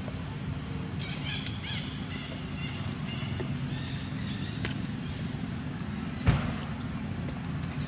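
Outdoor background with a steady low rumble and a few short, high chirping calls between about one and three seconds in. A sharp click comes near the middle, and a louder thump about six seconds in.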